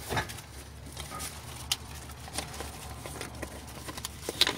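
Scattered light clicks and taps of a new plastic distributor cap being picked up and handled, over a steady low hum.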